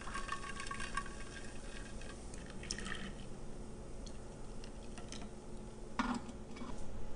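Quiet trickling and dripping of freshly made macadamia nut milk being poured, with a few small ticks.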